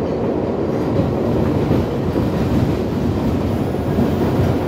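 MTA R62 subway train running along the track, heard from on board: a steady, loud noise of wheels on rail.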